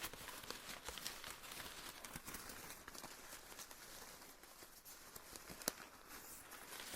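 Paper being torn and crinkled by hand close to the microphone: a continuous crackling rustle full of small ticks, with one sharper snap near the end.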